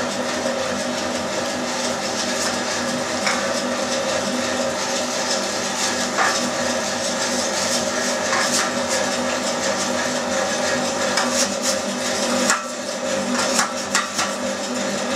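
Electric meat grinder running steadily as it minces fatty pork through its finest plate, with scattered clicks and knocks and a brief dip in level near the end.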